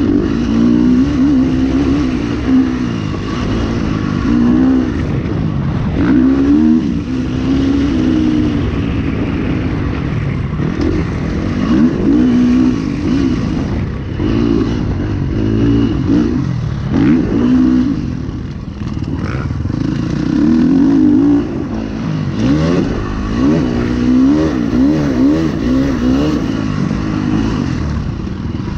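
KTM 350 SX-F single-cylinder four-stroke motocross engine heard up close from the rider's position, revving up and down again and again as the throttle is worked and gears change around a dirt track.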